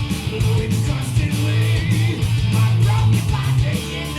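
Rock music with electric guitar over a steady, driving drum beat.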